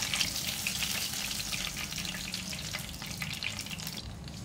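Hot oil sizzling and crackling around beef mince kababs shallow-frying in a pan, the crackle fading near the end.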